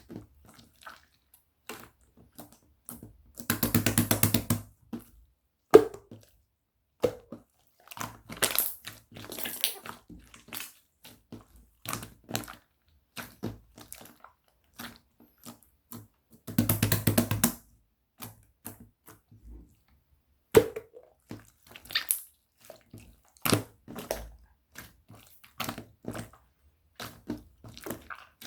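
Orange slime being squished and pressed: scattered sticky pops and clicks, with two stretches of rapid crackling, about four seconds in and again midway through.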